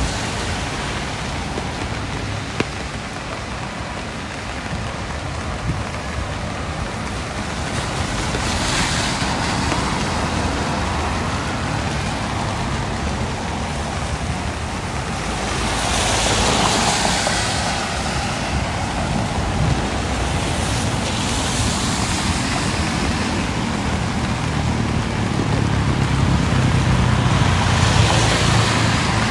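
Street traffic noise: a steady hiss and rumble with several vehicles passing close by, the loudest about halfway through and another near the end.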